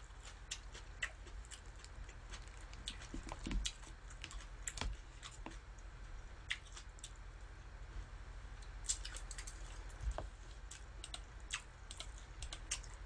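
Quiet eating sounds: scattered small clicks and taps of chewing and chopsticks on pan-fried pork meatball patties, with a few soft low thumps, near the middle and again about ten seconds in.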